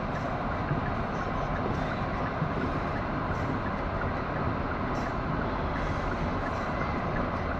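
Steady rumble of a car driving, heard from inside the cabin: road and engine noise at a constant level.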